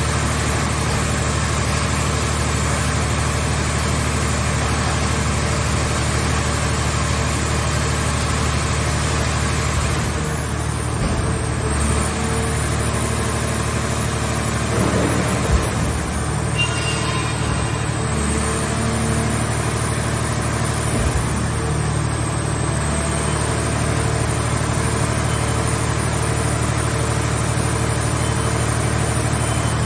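Portable scrap car baler's engine and hydraulic power unit running steadily with a low drone. Its tone shifts a little around the middle, with a single knock about halfway through.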